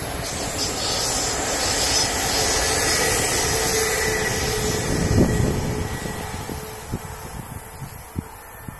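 Passenger train running past on the rails: wheel-on-rail rumble with a faint steady whine, loudest about five seconds in, then fading as it moves away.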